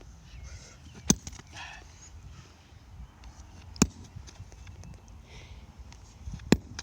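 Three sharp sledgehammer blows striking a Master padlock, about two and a half seconds apart: the strikes that finally break the lock.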